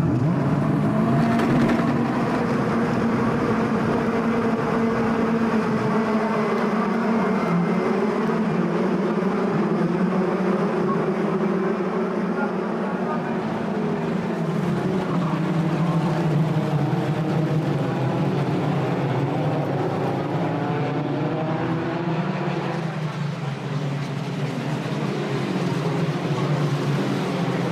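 A field of Formula 3 cars, their two-litre four-cylinder engines at high revs, racing away from the start as a pack. Many engine notes overlap, climbing and dropping in pitch as they accelerate and change gear.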